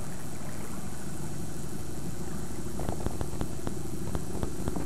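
A steady, low motor hum, engine-like at idle. From about three seconds in, a run of light, irregular clicks comes in, a few each second.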